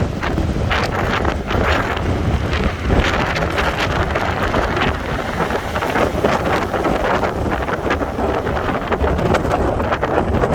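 Strong wind buffeting the microphone, over the steady noise of a stormy sea's surf.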